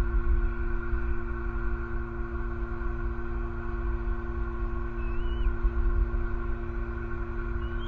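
Steady low rumble of road traffic under a constant electrical hum. A brief faint bird chirp comes about five seconds in, and more rising chirps come right at the end.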